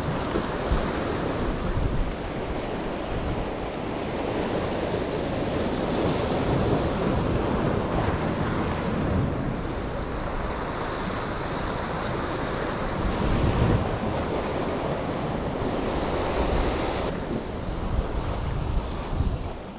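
Sea waves washing, with gusting wind rumbling on the microphone.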